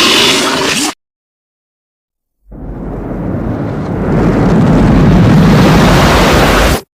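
Tokusatsu sound effects: the tail of one effect cuts off about a second in, and after a gap of dead silence a deep rumbling, explosion-like noise swells up, holds loud and stops abruptly near the end.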